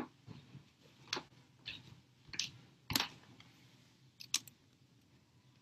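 A person getting up off a yoga mat and moving away across a wooden floor: scattered soft knocks, rustles and sharp clicks at uneven intervals, the loudest about three seconds in and a close pair a little after four seconds.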